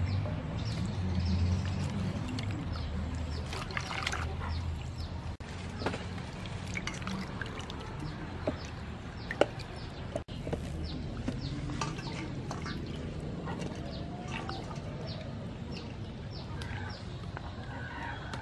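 Hands washing vegetables in a steel basin of water: repeated splashing and sloshing, with light knocks against the bowl.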